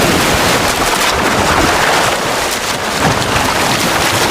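Steady, dense splashing and rushing water from dolphins thrashing at the edge of a mud bank as they strand-feed, scooping up fish driven ashore.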